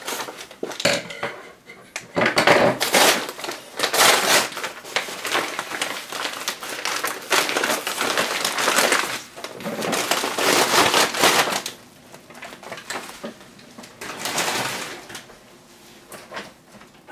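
Plastic mailer bag being cut open with scissors, then crinkling and rustling in irregular bursts as hands tear it apart and pull out a bubble-wrapped package. The rustling dies down to quieter handling in the last few seconds.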